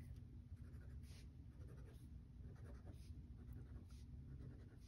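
Pen writing on a paper savings-challenge card as the printed circles are marked off: a series of short, faint scratching strokes.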